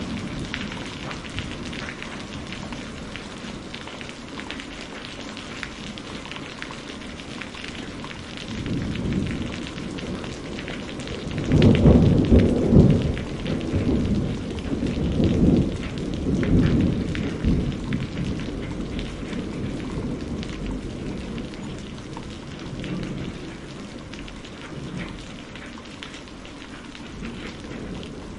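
Steady rain falling, with a long roll of thunder. A low rumble builds about a third of the way in, is loudest near the middle, and rolls on in waves for several seconds before fading back under the rain.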